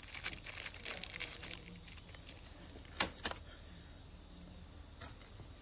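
Small steel replaceable broadhead blades being handled: light rustling and metallic clinking, then two sharp clicks about three seconds in.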